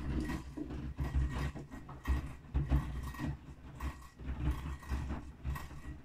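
Bosch front-loading washing machine mid-wash: the drum turning and tumbling wet, sudsy laundry, with water sloshing and uneven thuds as the load drops.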